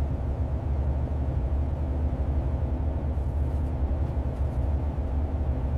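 Motorhome driving on the road: a steady low rumble of engine and road noise.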